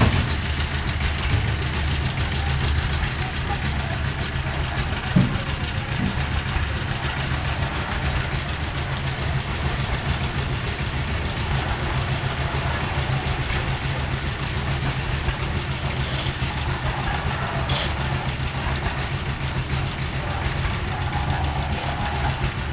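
Concrete mixer's engine running steadily, a constant low hum under a noisy rattle, with a single sharp knock about five seconds in.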